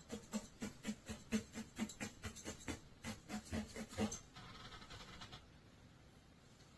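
A felting needle punching into wool in quick, even pokes, about five a second. The pokes stop about four seconds in, leaving faint hiss.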